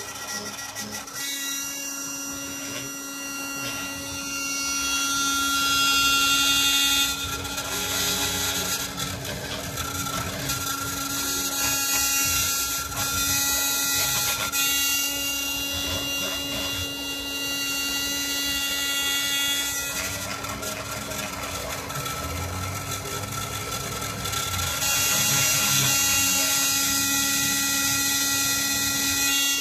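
A handheld rotary tool spins steadily as the spindle of a homemade CNC engraver while its bit cuts into a clear plastic sheet. A high cutting hiss swells and fades as the stepper motors move the table through the lettering.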